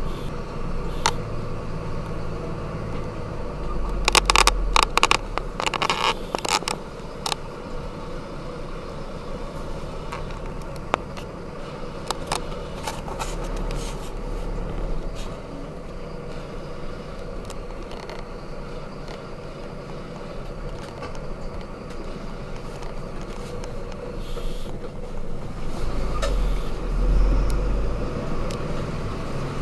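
Mercedes-Benz Zetros 6x6 truck heard from inside the cab, its diesel engine running low and steady as it crawls through mud, swelling under load three times. Clusters of sharp clatters and scrapes come a few seconds in and again about twelve seconds in.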